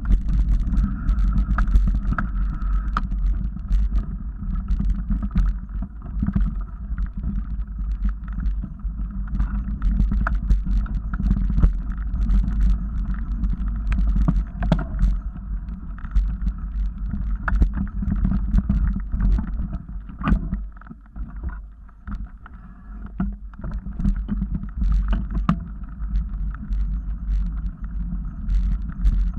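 Mountain bike riding fast over a dirt forest trail: steady rumble and wind buffeting on the microphone, with many sharp clicks and rattles from bumps on the trail. It eases off briefly about two-thirds of the way through.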